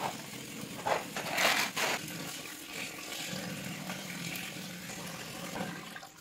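Water pouring in a stream into a large steel pot of dry rice, filling it. There is a louder rushing stretch about one to two seconds in.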